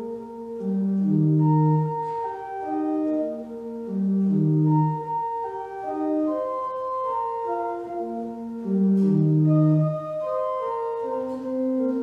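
Church organ playing slow phrases of sustained notes, a melody moving over held chords in the bass and middle, each phrase swelling and easing off.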